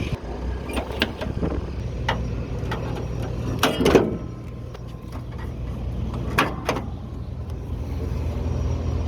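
Jeep engine idling with a steady low hum, with a scatter of sharp knocks and clanks over it, the loudest about four seconds in.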